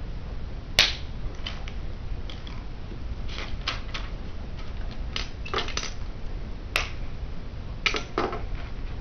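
Plastic Bionicle pieces clicking and snapping as they are handled and fitted together, with scattered sharp clicks and light clatter; the sharpest snaps come about a second in and just before seven seconds, over a steady low hum.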